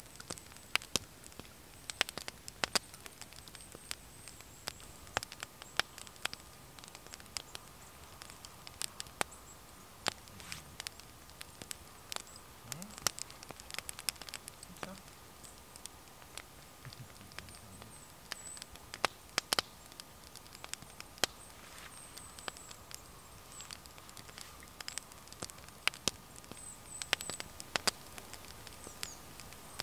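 Small wood fire crackling, with irregular sharp snaps and pops.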